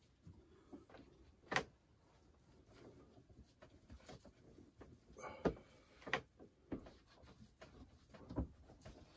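Scattered light knocks, clicks and rubbing from a hand working over a model railroad layout at uneven intervals, the sharpest about a second and a half in and again past the middle.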